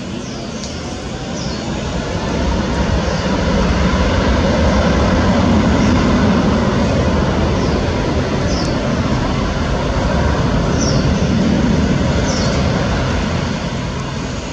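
Boeing 777-200ER's twin jet engines at takeoff power during the takeoff roll: a loud, deep jet roar that builds over the first three seconds or so, holds steady, and eases off near the end as the airliner pulls away down the runway.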